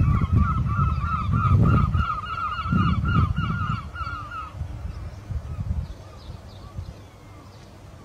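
A flock of geese honking: a quick, even run of repeated calls that stops about four and a half seconds in, over a loud low rumble that swells and fades.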